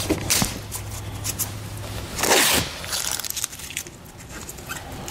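Blue painter's tape being pulled off its roll and pressed onto car paint, with crackling and small ticks from the tape. About two seconds in there is a half-second ripping sound as a length of tape comes off the roll.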